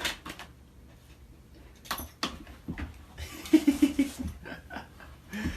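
A dog making a quick run of four or five short, low vocal sounds about three and a half seconds in, with a few sharp clicks and knocks before them.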